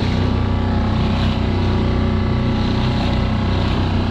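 Small tiller-steered outboard motor on a Solo Skiff running steadily under way, with water washing along the hull.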